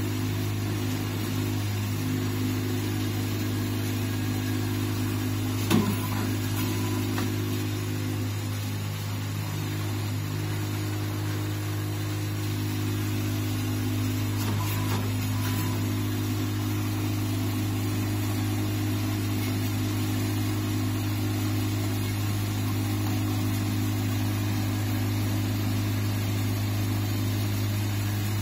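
Desktop nylon cable tie machine humming steadily with a low, even drone, and a single sharp click about six seconds in, with a few fainter clicks around the middle.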